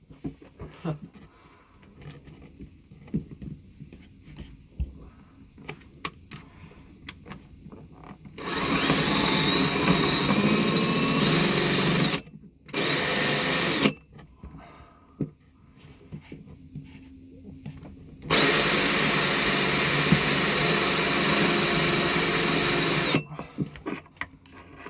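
Power drill cutting into the boat, run in three bursts with a high whine: one of about four seconds, a short one right after a brief stop, and a longer one of about five seconds later on. Light handling clicks come in between.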